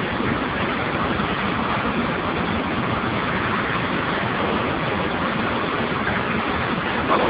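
Steam boiler giving a steady, even rushing hiss, with a brief louder blip near the end.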